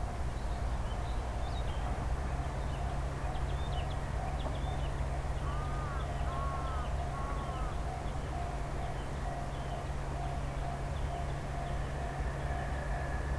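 Steady low rumble and hum of a JR Freight EH500 electric locomotive and its container freight train approaching in the distance. Small birds chirp throughout, with a few arching bird calls around the middle.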